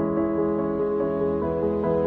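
Soft, slow background music: held keyboard chords that change every second or so.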